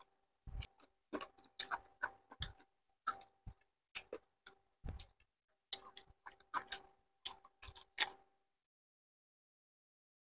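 Faint, irregular clicks and smacks of eating by hand: mouths chewing and sucking on chicken feet and fingers picking at the food. The clicks stop about two seconds before the end.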